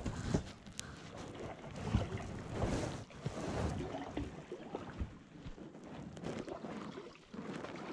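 Canoe paddles dipping and pulling through the water in uneven strokes, with splashes and a few sharp knocks.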